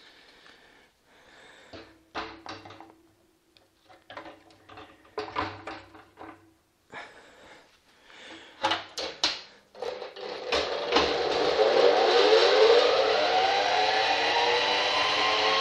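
Wooden honeycomb frames knock and clatter as they are handled in a stainless-steel honey extractor. About ten seconds in, the extractor's electric motor starts and spins the frames up, with a whine rising in pitch as it gathers speed, then runs loud and steady, flinging the honey out of the combs.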